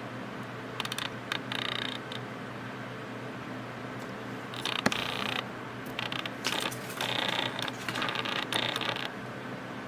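Camera lens autofocus motor whirring and clicking in several short buzzy bursts, with one sharp click about five seconds in.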